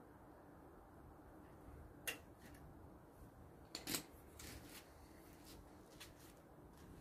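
Near silence: faint room tone with a few light clicks and knocks, the loudest about four seconds in.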